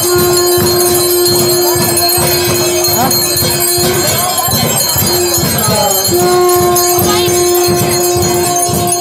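Temple aarti music: hand bells jingling and a steady drum beat, under a long held note from a wind instrument. The note breaks off about four seconds in and is taken up again about two seconds later.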